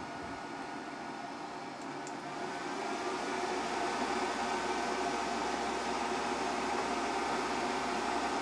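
Steady fan-like mechanical whir with a faint high whine, growing louder about three seconds in.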